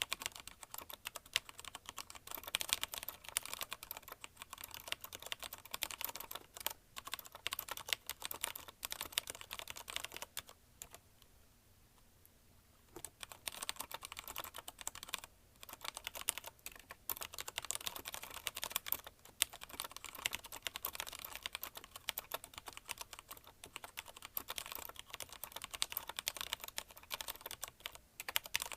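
Fast continuous typing on a mechanical keyboard with Cherry MX Red linear switches (CM Storm Quick Fire TK): a dense stream of key clacks, breaking off for about two seconds near the middle before resuming.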